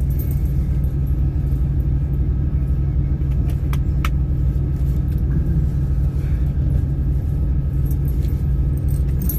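Steady low drone of a semi-truck's engine running, heard from inside the cab, with two short clicks about four seconds in.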